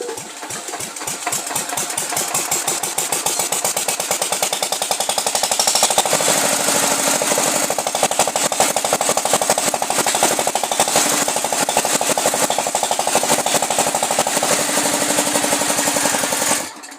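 Diesel engine of a power pump running: its firing beat starts slow and quickens over the first few seconds, then runs steadily until it cuts off sharply near the end.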